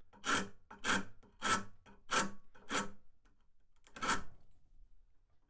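Sharp paint scraper scraping old, dried, crusted glue off a wooden chair tenon: five strokes in a steady rhythm, about one every half second, then a pause and one more stroke near the end.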